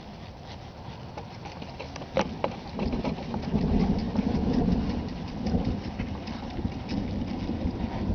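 Wind gusting across the microphone: a low, uneven rumble that swells in about three seconds in and keeps buffeting, after a couple of sharp clicks.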